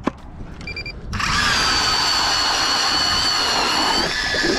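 Powered ice auger boring a hole through pond ice. Its motor starts about a second in and runs with a steady whine.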